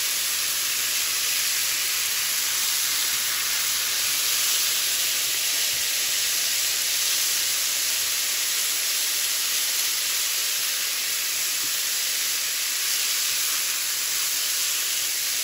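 Mixed vegetables (carrots, peas and green beans) frying in hot oil and spices in a pan: a steady sizzling hiss.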